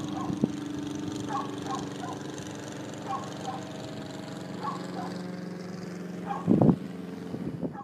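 A steady engine drone, with short bird calls repeating over it and a louder burst of calls about six and a half seconds in.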